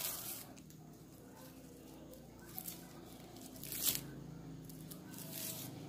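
Plastic raffia strips rustling and crinkling as they are twisted by hand into a cord, with a few brief louder crackles.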